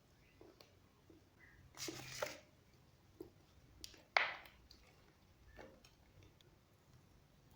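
Eating sounds close to the microphone: two short wet mouth noises, about two and four seconds in, and a few small clicks in between.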